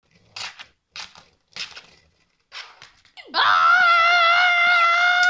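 A child's voice making sound effects for the toys: a few short breathy hisses, then about three seconds in a long, loud, high-pitched wavering scream.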